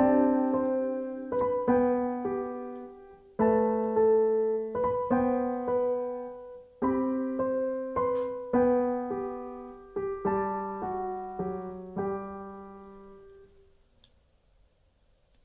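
Background piano music: a gentle melody of struck notes over held chords, fading out about thirteen seconds in.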